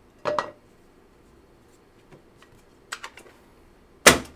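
Hands opening and handling a foil trading-card pack. There is a short crinkle near the start, a few light clicks about three seconds in, and a sharp, loud tap of the cards on the table just after four seconds, the loudest sound.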